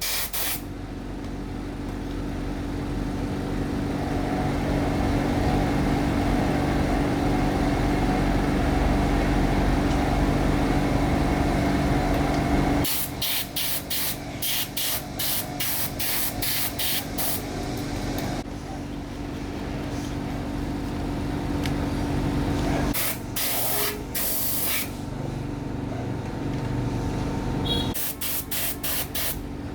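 A spray nozzle hissing while cleaning a robot vacuum: a steady hiss with a low hum for about the first thirteen seconds, then three runs of rapid short bursts.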